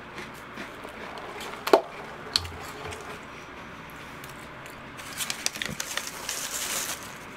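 Close-up chewing of a mouthful of chocolate cereal in milk, with a couple of sharp clicks about two seconds in. About five seconds in, paper wrapping crinkles for a couple of seconds as a hand picks a doughnut out of it.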